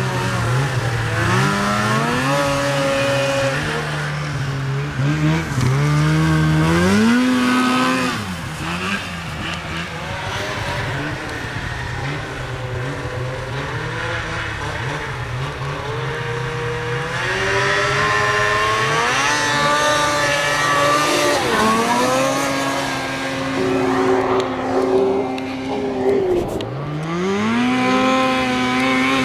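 Two-stroke snowmobile engines running hard: the pitch climbs in repeated surges as the sleds accelerate and holds steady at high revs in between, dropping briefly near the end before climbing again.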